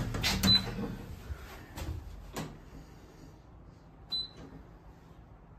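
Station passenger lift: short high beeps from its call-button panel, with clicks and knocks from the buttons and lift doors in the first two and a half seconds, then one more beep about four seconds in.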